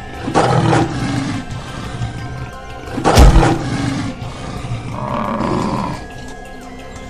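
Lion roars, used as sound effects: one starting just after the opening, and a louder, deeper one about three seconds in, over background music.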